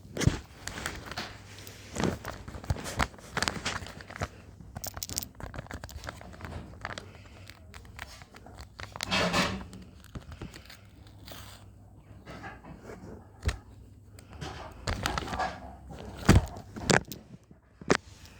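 A blind bag's packaging being handled by hand: irregular tearing, crinkling and crackling rustles with scattered clicks, and a longer, louder rustle about halfway through.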